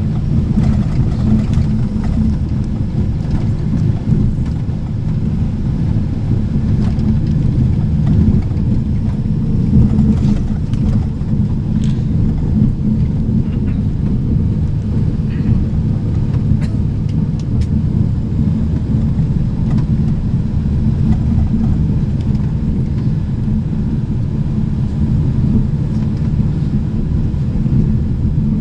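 Steady low rumble of a moving vehicle's engine and running gear, heard from on board.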